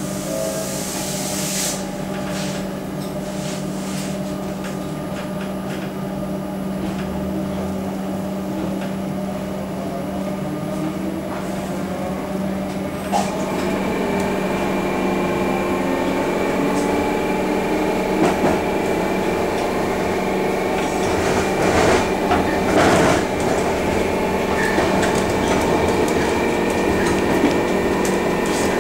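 Interior of a Comeng electric multiple unit pulling away and accelerating: a steady hum under electric traction motor whine that climbs in pitch as speed builds. There is a brief hiss near the start, and a few knocks and clunks from the running gear, one about halfway and a cluster near the end.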